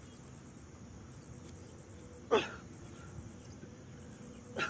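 Two short, forceful grunting exhales, falling in pitch, from a man doing push-ups, a little over two seconds apart with one for each push. Faint insect chirping in short pulsed bursts goes on behind.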